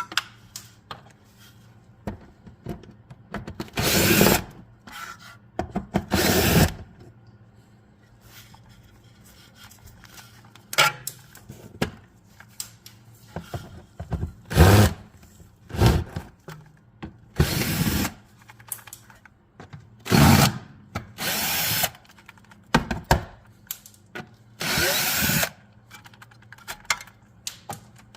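A power tool run in repeated short bursts of about half a second to a second each, a dozen or so in all, with quieter clicks and clinks in between.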